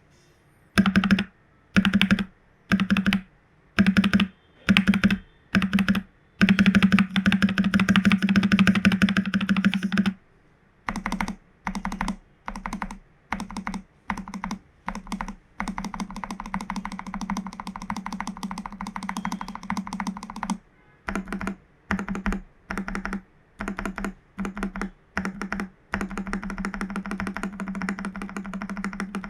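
Mechanical keyboard with Jwick Black v2 nylon linear switches and PBT keycaps being typed on. Short bursts of rapid keystrokes about a second long alternate with longer stretches of fast continuous typing. The keystrokes are louder for the first ten seconds or so and quieter after that.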